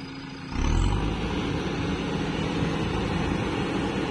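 Heavy diesel engine revving up sharply about half a second in, then running hard at high revs.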